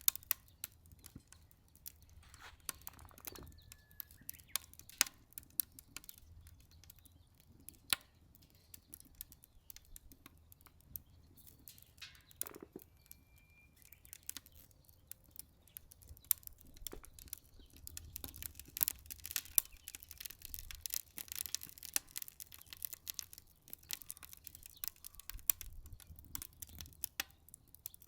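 Wood fire crackling in a Solo Stove Ranger stainless fire pit, burning half-rotten sticks: a steady run of irregular sharp snaps and pops, thicker in the second half.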